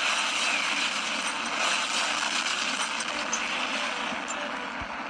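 Explosion sound effect: a long, steady rushing roar with almost no deep bass, fading slowly. It is the sound of mushroom-cloud blast footage played back from a screen.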